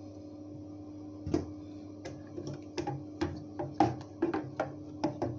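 Wooden spoon stirring blended cucumber juice in a plastic blender jug and tapping against the sides, as irregular clicks about two or three a second starting about a second in, over a steady low hum.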